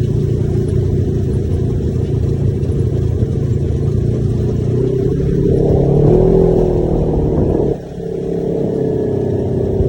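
Side-by-side UTV engine running while under way. About halfway through it revs up for a couple of seconds, lets off abruptly, then pulls steadily again.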